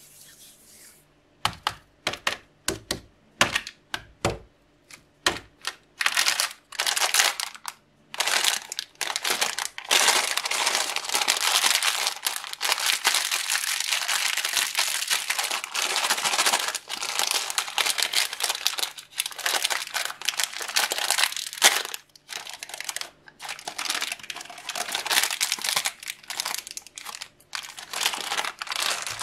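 Plastic wrapper of an M&M's bag crinkling as hands squeeze and tear it open. It starts as separate crackles, then becomes near-continuous crinkling with one short pause late on.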